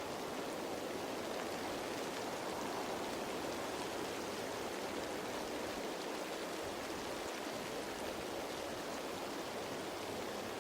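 Steady rain falling on leaves, an even wash of patter without pauses or changes.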